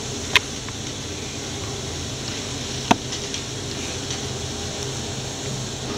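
Steady low background hum, with two short clicks: one just after the start and one about three seconds in.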